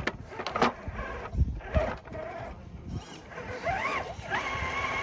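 Scale RC crawler's electric drive motor whining, rising and falling in pitch with the throttle and then holding steady in the second half, after a few knocks from the rig on the course early on.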